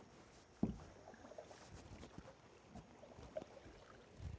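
Faint, irregular splashing and dripping of a kayak paddle working the water, with a single knock a little under a second in.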